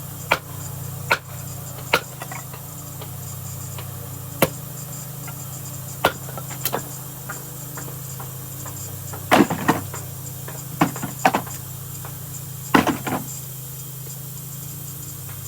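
Axe splitting kindling: the True Temper Flint Edge Kelly Works axe striking and splitting wood in about a dozen sharp chops, unevenly spaced, with quick clusters of blows about nine and thirteen seconds in. A steady low hum runs underneath.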